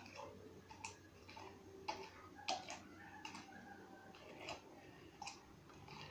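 Homemade slime being touched and handled, giving faint, uneven sticky clicks about once a second.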